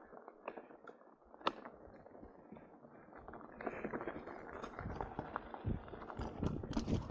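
Mountain bike rolling on a gravel track: tyres crunching over loose stones, with quick clicks and rattles. It gets louder about halfway through.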